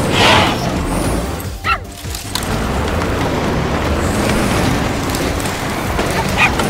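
Cartoon soundtrack: background music over a steady low rumble, with a short whoosh at the start and a brief drop in level about two seconds in.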